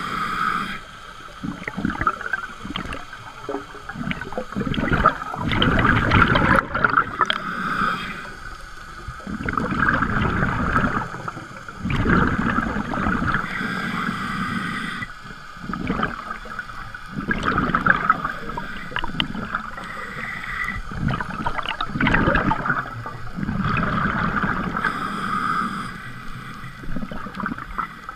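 Scuba diver's regulator breathing underwater: bursts of exhaled bubbles gurgling, repeating every three to four seconds.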